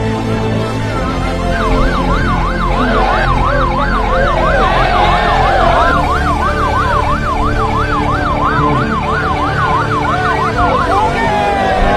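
Police car electronic siren on a fast yelp, its pitch rising and falling about three times a second. It starts about a second and a half in and stops about a second before the end, with music underneath.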